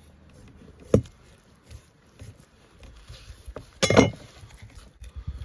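Steel cleaver on a wooden cutting board: a sharp tap about a second in, a few light knocks, then a louder clatter with a short metallic ring near the end as the cleaver is laid down on the board.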